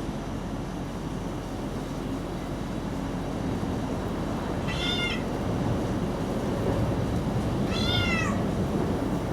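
Cat meowing twice, high-pitched, about three seconds apart; the second meow is longer and rises then falls in pitch. A steady low background noise runs underneath.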